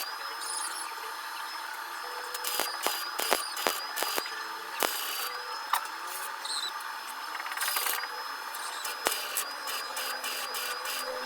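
Power tool running steadily, with scattered sharp clicks and knocks of tools and metal parts.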